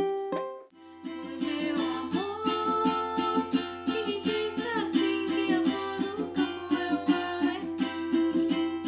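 Background music: a plucked-string tune that drops out briefly about half a second in, then comes back with a steady strummed rhythm under a held melody line.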